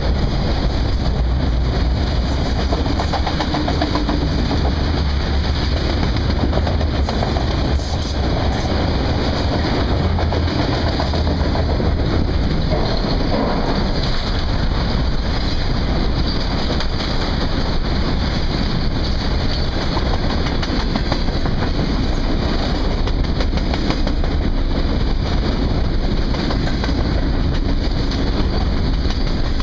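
A long freight train of enclosed autorack cars rolling past: a steady rumble of steel wheels on the rails, with a clickety-clack of the car trucks.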